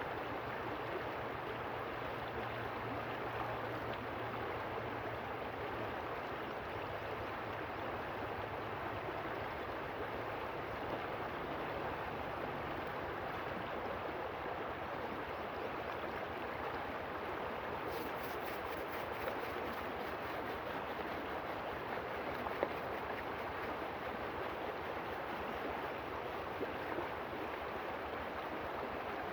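River water flowing steadily, with a few brief knocks in the second half.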